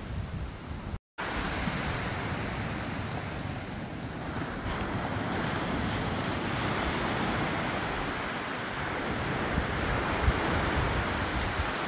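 Small waves breaking and washing up a sandy beach, with wind buffeting the microphone. The sound cuts out completely for a moment about a second in, then the surf carries on steadily.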